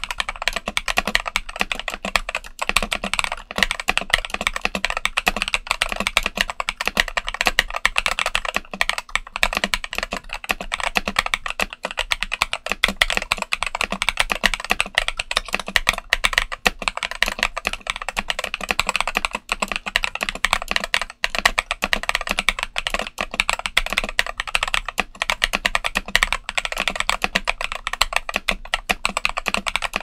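Fast, continuous typing on a mechanical keyboard with MMD Princess linear switches (53 g) in a stock CIY Tester68 board, capped with XDA-profile PBT keycaps: a dense, unbroken stream of key strikes.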